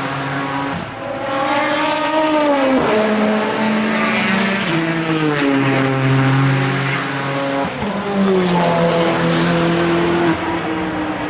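Race car engines running hard through a corner, their pitch climbing and then dropping in sudden steps as the cars shift gears, with a falling sweep about eight seconds in.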